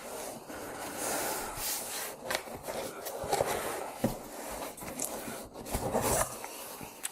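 Cardboard box and keyboard packaging being handled: continuous rustling and scraping with scattered light knocks as the keyboard is unpacked.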